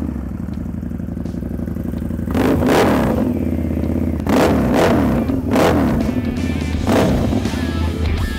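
Harley-Davidson Night Rod Special's V-twin engine, breathing through a Vance & Hines 2-into-1 competition exhaust, idling just after starting and blipped about four times, each rev rising and dropping back to idle.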